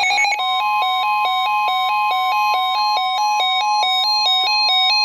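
Emergency alert tones for a Special Marine Warning: a steady warning tone near 1 kHz, with a fast electronic beeping laid over it that switches between two pitches about six times a second.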